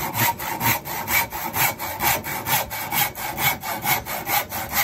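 Handsaw crosscutting a turned wooden furniture leg, in quick, even back-and-forth strokes, about four a second.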